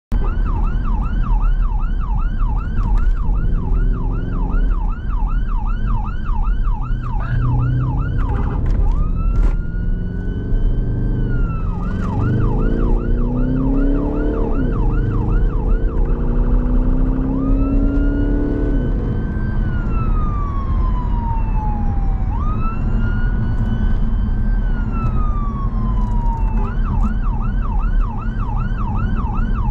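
Emergency response car's siren running on a fast yelp, about three rises and falls a second. Three times it switches to a slower wail that climbs, holds and sweeps down before going back to the yelp. Steady engine and road rumble runs underneath.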